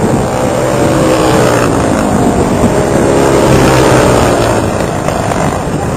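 Racing karts' Honda GX-series single-cylinder four-stroke engines running at race speed, the engine note rising and falling as the karts accelerate and lift.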